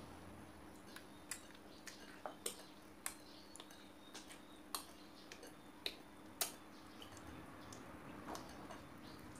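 Slime being squeezed and kneaded by hand in a glass bowl, giving faint, irregular sharp clicks and pops as air pockets in it burst.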